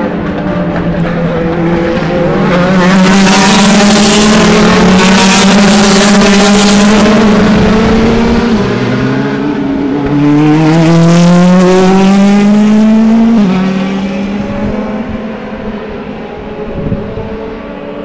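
DTM race cars' 4.0-litre V8 engines accelerating past, the engine note climbing in pitch and dropping sharply at upshifts about 8.5 and 13.5 seconds in, then fading away.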